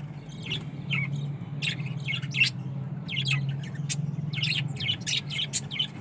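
Budgerigars chirping in many short, high chirps that come thicker in the second half, over a steady low hum.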